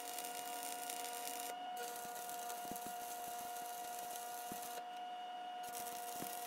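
Stick welder's arc crackling and hissing steadily as a rod is run along steel plate, cutting out briefly twice where the arc is broken.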